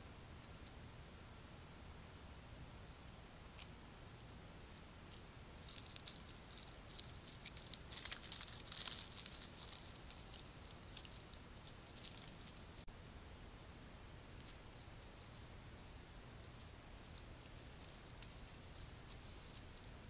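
Soft rustling and crackling in leaf litter, a scatter of small dry ticks that thickens and peaks about eight to nine seconds in, then thins out again.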